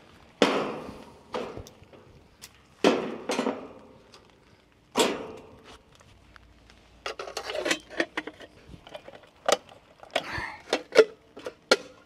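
Tools and parts being handled and put away during cleanup: three clattering knocks a couple of seconds apart, then a quicker run of sharp clicks and taps near the end.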